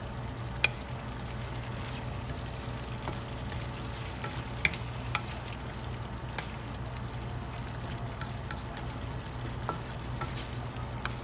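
Pork belly cubes and shrimp paste sizzling in a stainless steel pan while being stirred with a wooden spatula. The spatula gives a few sharp knocks and scrapes against the pan, over a steady low hum.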